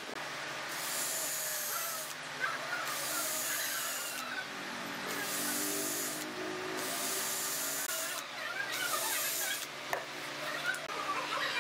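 Cordless drill driving screws into a wooden table top in about five short runs, each a second or so long with brief pauses between.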